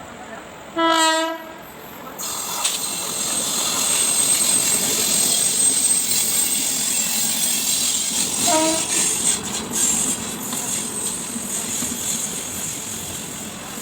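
WAP-4 electric locomotive horn sounding a short blast about a second in, and a fainter short one past the middle. Underneath is the running noise of the ICF coaches on the track, which grows suddenly louder, with a harsher high rush, about two seconds in.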